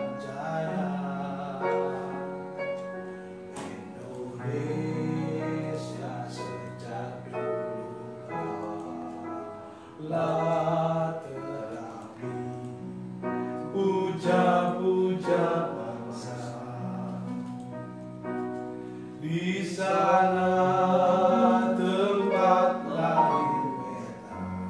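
A man singing a slow, ornamented melody in long phrases over held electronic keyboard chords.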